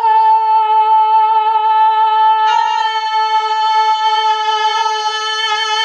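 A person singing one long, loud note, held at a steady pitch, the tone turning brighter about halfway through.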